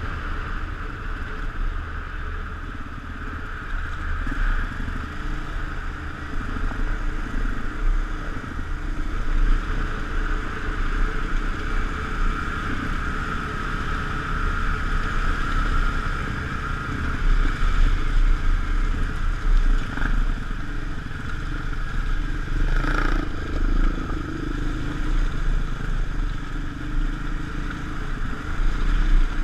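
Motorcycle exhaust note at road speed, heard over another motorcycle's engine and wind noise on the microphone. There is a brief sharp sound about 23 seconds in.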